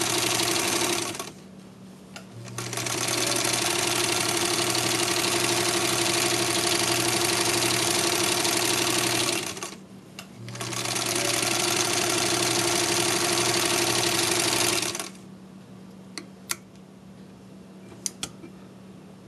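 Singer 66 sewing machine stitching at a steady fast rate in three runs. It stops about a second in, runs again from about two to nine seconds, then from about ten to fifteen seconds, and then stops. A few light clicks follow near the end.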